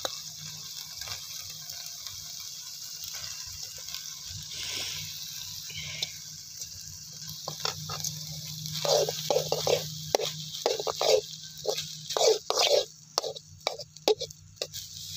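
A steady hiss, then from about halfway through a run of loud, irregular scrapes as a slotted steel ladle stirs and mixes cooked rice in a kadai.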